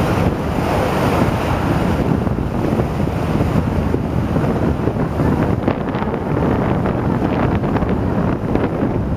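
Wind buffeting the microphone on an open ferry deck: a steady, loud rumble with the rush of water beneath it.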